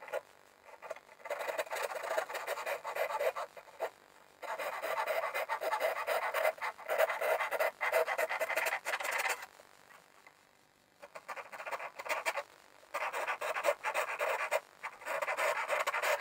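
Hand saw cutting into wood in quick back-and-forth strokes, in several runs broken by short pauses.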